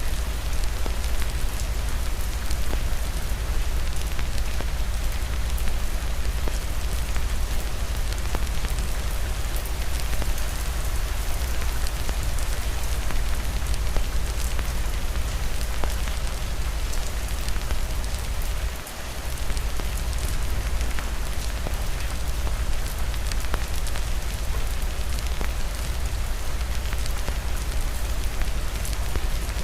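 Steady heavy rain mixed with the scattered small crackles of a wood fire, over a constant low rumble. The sound drops briefly about two-thirds of the way through, then resumes unchanged.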